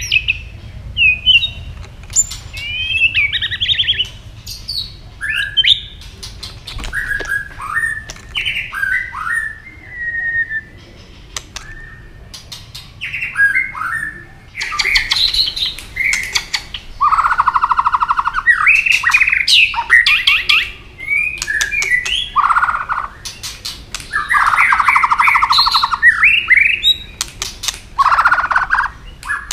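White-rumped shama singing a varied song: whistled phrases that glide up and down, mixed with many sharp clicking 'tak' notes and several long, harsh buzzy notes in the second half.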